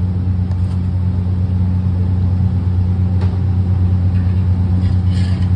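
A loud, steady, low-pitched mechanical drone, the constant running noise of commercial kitchen equipment around the pot of frying onions, with a faint click about three seconds in.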